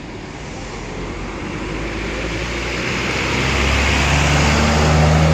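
Tour bus approaching, its engine and road noise growing steadily louder; a low steady engine drone comes in about three seconds in.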